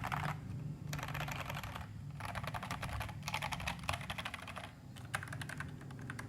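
Fast typing on an FL-MK870 mechanical keyboard, tape-modded and dampened with silicone, fitted with pre-lubed Feker Crystal switches on 50 g springs and Cherry-profile keycaps: quick runs of keystrokes broken by short pauses.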